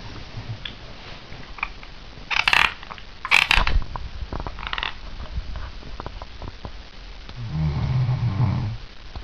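Teeth grinding in sleep (bruxism): two loud grinds about two and three seconds in, a softer one just after, and scattered small tooth clicks, then one snore near the end.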